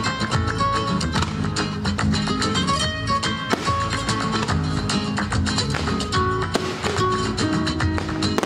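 Flamenco-style guitar music with sharp, rapid plucked and strummed attacks.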